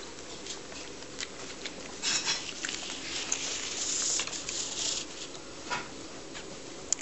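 Close rustling with small soft clicks and patter as English springer spaniel puppies squirm and nuzzle against their mother on a fleece mat, with a longer hissing rustle about two to five seconds in.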